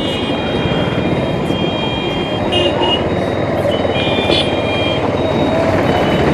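Bajaj Pulsar 220F's single-cylinder engine and wind noise while riding through dense town traffic, with high-pitched beeping tones from other vehicles' horns that come and go several times.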